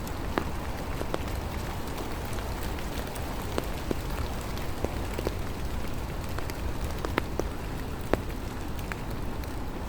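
Steady rain falling, with scattered individual drops ticking close by; a couple of louder drops land about seven and eight seconds in.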